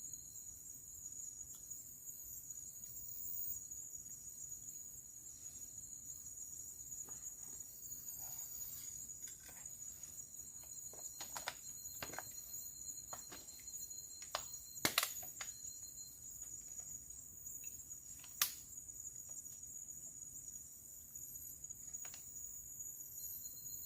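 Steady high-pitched buzzing of insects, with a thin whistling tone coming and going. A few sharp clicks and knocks fall in the middle; the loudest comes about fifteen seconds in and another near eighteen.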